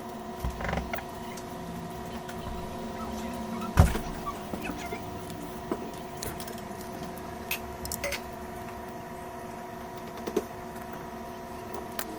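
Scattered small clicks and taps of tools and parts being handled on a repair bench, with one sharper knock about four seconds in, over a steady faint electrical whine.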